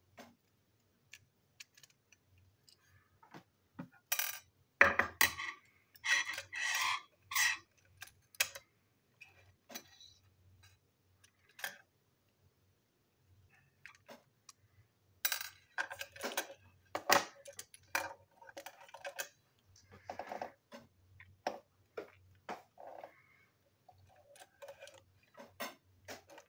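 Hard plastic parts of a toy train engine being handled and pulled apart by hand: irregular clicks, knocks and rattles, busiest in two spells about four and fifteen seconds in.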